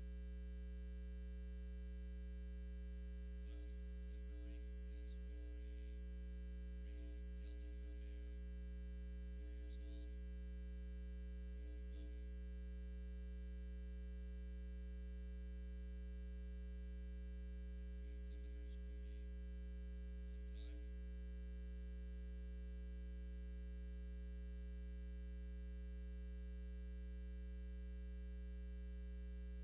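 Steady electrical mains hum, a low buzz with a ladder of overtones, dominating the sound. A few faint, brief, indistinct sounds come through it in the first half and again around two-thirds of the way in.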